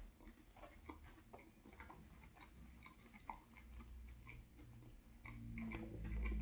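Close-miked chewing of a chicken sub sandwich, with many small wet mouth clicks. A low hum swells near the end.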